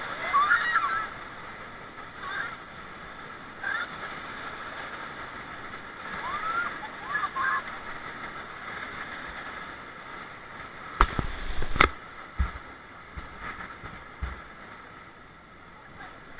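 River water rushing steadily, with short calls from people on the raft now and then and two sharp knocks about eleven and twelve seconds in.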